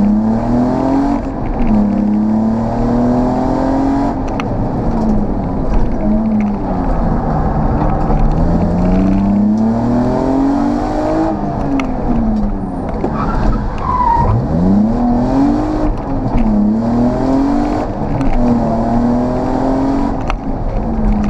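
BMW E36 328i's 2.8-litre straight-six engine heard from inside the caged cabin at full rally pace. It revs up through the gears again and again, dropping back on each shift and when slowing for corners, with a deep drop about two-thirds through before it pulls hard again.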